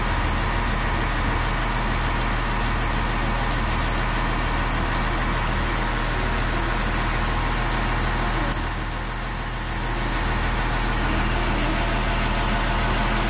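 Steady running hum of a red regional electric train standing at the platform, dipping briefly about nine seconds in.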